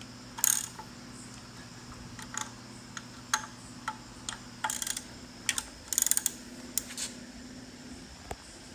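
Irregular sharp metallic clicks, about nine or ten spread unevenly, from a ratchet turning a 4G63 engine over by hand, over a steady low hum.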